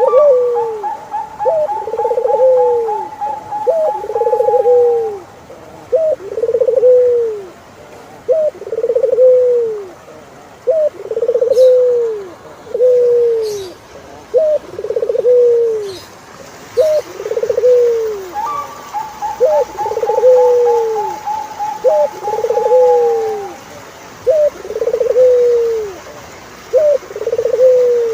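Turtle doves cooing: a short note followed by a longer rolling coo, repeated about every two seconds. Twice a long, steady, higher whistle of about four seconds runs over the coos, once at the start and again past the middle.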